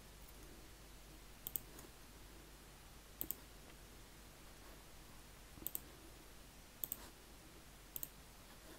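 Computer mouse button clicking a handful of times, a second or two apart, with two of the clicks coming in quick pairs; each click places the next point of a polyline. Faint steady room hiss underneath.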